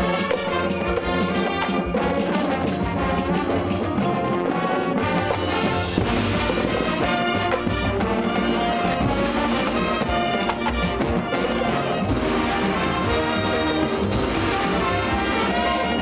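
Marching band playing, its brass section sounding full sustained chords at a steady, loud level.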